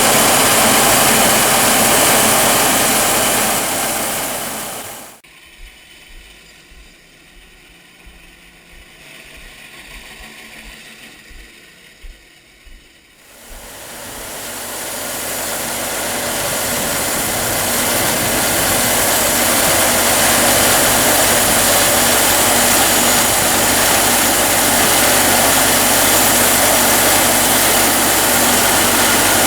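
Sawmill running loud, its engine and saw sounding as one steady noise. It drops off sharply about five seconds in to a much quieter stretch with a few knocks, then builds back up over several seconds to the same steady run.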